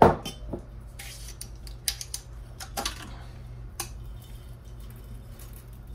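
Kitchen utensils and cookware clinking: one sharp knock with a short ring at the start, then a few lighter clinks about a second apart, over a low steady hum.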